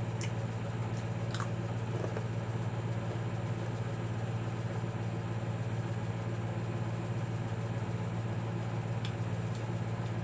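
A person chewing peanut brittle, with a few faint crisp crunches, over a steady low hum that is louder than the chewing.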